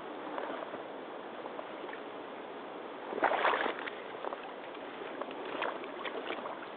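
Rubber hip boots wading through a shallow muddy puddle: water sloshing and splashing around the boots, with a louder splash about three seconds in.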